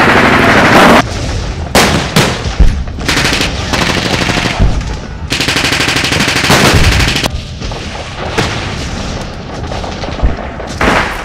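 Blank gunfire in a WWII reenactment firefight: repeated rifle shots and bursts of automatic fire, with one long machine-gun burst lasting about two seconds a little past the middle.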